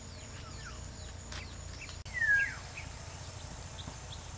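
Birds calling in rural outdoor ambience: a quick series of short falling chirps, then about two seconds in a single louder whistled call that rises and sweeps down. A steady high insect drone in the first half cuts off abruptly about two seconds in.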